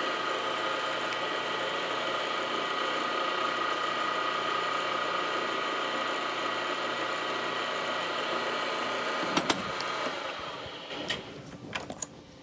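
Mill-drill spindle running steadily with a whine while a hole is drilled into a metal part. About nine and a half seconds in there are a couple of clicks and the machine winds down and stops, followed by a few light metallic clicks.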